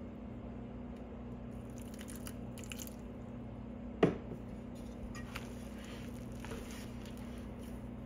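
A hand squeezing wet, shaggy flour-and-water dough in a steel bowl, with soft squelching. There is one sharp knock about halfway through, over a steady low hum.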